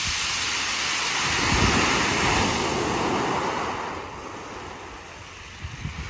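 Waves breaking and washing over a steep shingle beach of small pebbles. One surge swells to its loudest about two seconds in and fades by about four seconds. A few low bumps of wind on the microphone come near the end.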